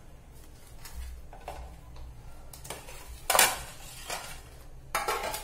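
Knocks and scrapes of a tray being handled against a plate as a slab of set burfi on butter paper is turned out of it: a few light knocks, one louder clatter about three seconds in, and another near the end.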